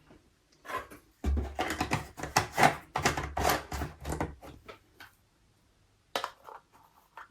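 Rapid clicks, taps and knocks of small parts and tools being handled on a workbench, with a low rumble under the busiest stretch; a few separate clicks follow near the end.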